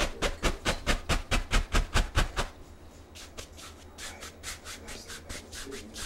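Paint brush scrubbing oil paint onto canvas in quick back-and-forth strokes, about six a second. After about two and a half seconds it pauses, then goes on with softer, slower strokes.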